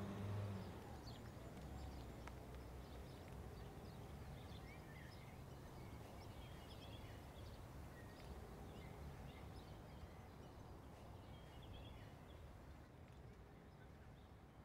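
Faint birdsong: scattered short chirps over a low, steady outdoor hum.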